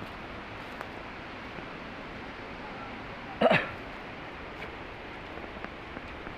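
Steady background hiss, with one short, sharp vocal sound about three and a half seconds in.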